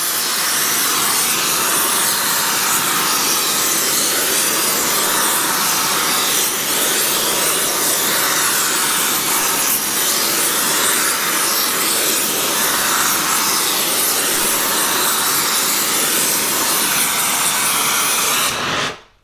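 Oxy-fuel torch flame hissing steadily as it heats a cast iron casting, then shut off abruptly near the end.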